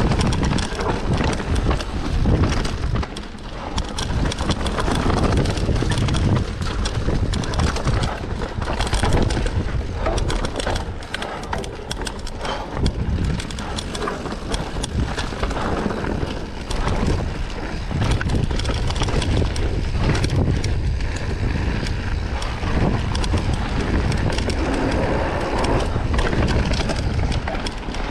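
Mountain bike riding fast down a dirt singletrack: knobby tyres rolling and crunching over dirt, roots and rocks, with constant rattling and knocking from the bike over the bumps and a steady low rumble.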